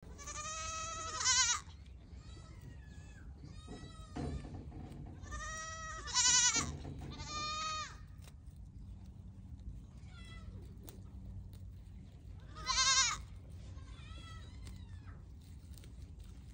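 Pygmy goats bleating repeatedly, a series of wavering calls. The loudest come about a second in, around six seconds in and near thirteen seconds.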